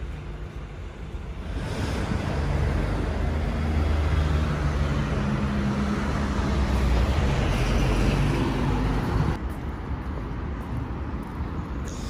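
Street traffic, with a motor vehicle's engine running close by under road noise; it swells in a second or two in, holds for several seconds, then drops away abruptly near the end.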